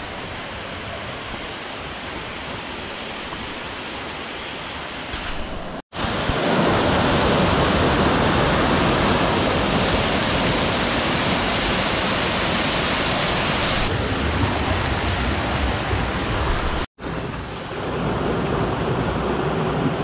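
Steady rush of water tumbling over rocky cascades and small waterfalls. It breaks off abruptly twice, and is loudest in the middle stretch.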